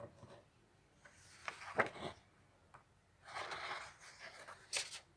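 Pages of a paperback colouring book being handled and turned: a few taps on the book about two seconds in, then paper rustling and a sharp paper snap near the end.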